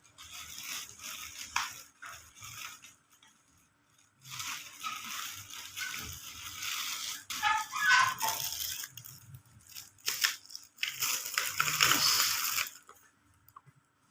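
Plastic packaging rustling and crinkling as small items are unwrapped and handled, in three spells with a few light knocks, dying away near the end.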